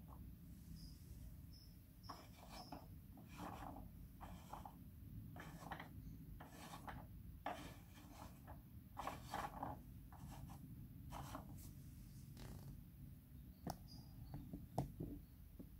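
Faint plastic scraping and rubbing as the small spinning cup ride of a vintage Polly Pocket carnival playset is turned by hand: a dozen or so short scrapes, with a few light clicks near the end.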